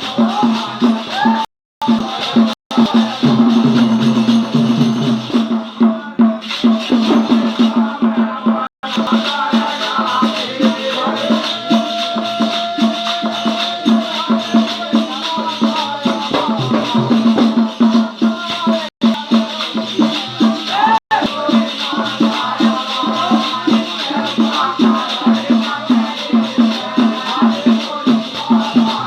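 Bundeli devi bhagat devotional folk music: a fast, steady shaker-like rattling beat with voices over it. The sound cuts out abruptly for a moment several times.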